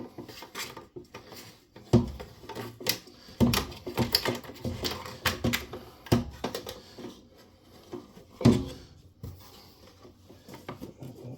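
Irregular knocks, clicks and clatter of hard objects being handled and set down, with two louder knocks about two seconds in and near the end.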